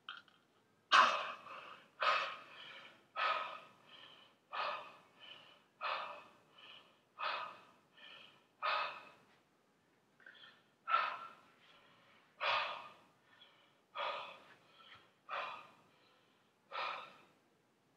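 A man breathing hard in sharp, rhythmic gasps, about one every second and a half, each followed by a softer breath, with a brief pause past the middle.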